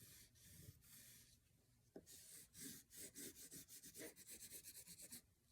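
Faint scratching of colouring strokes on paper, made while filling in brick lines. The strokes are sparse at first, then quick and back-and-forth at about five a second in the second half.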